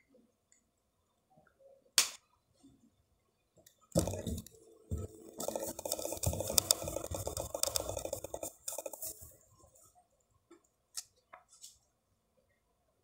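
Whiteboard being wiped clean with a duster or cloth: a run of quick, scratchy rubbing strokes lasting about five seconds, after a single sharp click about two seconds in.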